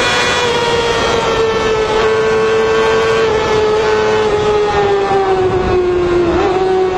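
Motorcycle engine held at high revs, a steady high whine whose pitch slowly falls, with a brief wobble in pitch near the end.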